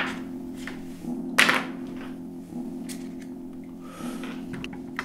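Low, dark droning film score of several held tones that break off and resume, with a few soft knocks and one sharp hiss about a second and a half in.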